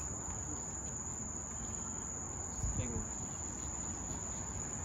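Night-time crickets trilling in one steady, continuous high tone, with a soft low bump a little past halfway.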